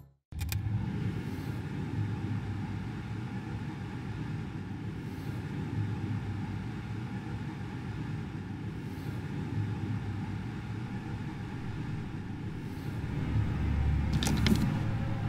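A steady low rumble with faint soft hisses every few seconds. Near the end come a few brief rustles and light knocks as a hand reaches into a kitchen cupboard.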